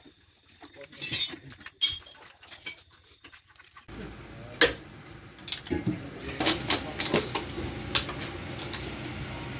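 Metal tools and parts clinking and knocking during engine fitting. About four seconds in, a steady low mechanical hum starts, with more knocks over it.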